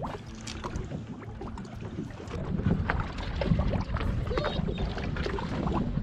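Wind on the microphone and water against a small boat's hull, with scattered small knocks and clicks. The noise grows louder about halfway through.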